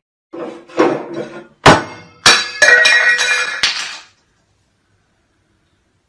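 A burst of clattering: several sharp knocks and clinks, then a dense rattle with some ringing, lasting about three and a half seconds before it stops abruptly.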